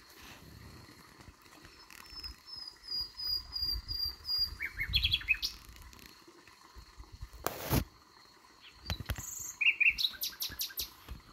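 Nightingale singing at night: a run of about seven repeated high notes, then a fast jumble of lower notes, and near the end another phrase of rapid clicking notes and trills. A short burst of noise cuts across about two thirds of the way in.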